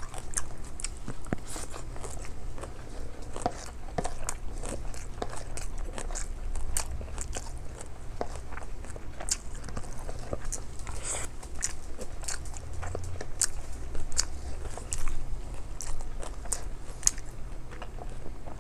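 A person chewing food with her mouth close to the microphone: many small, sharp wet mouth clicks through the whole stretch.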